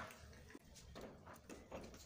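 A few faint, soft squelches of a hand pressing a lump of homemade butter under cold water in a steel bowl, washing the butter.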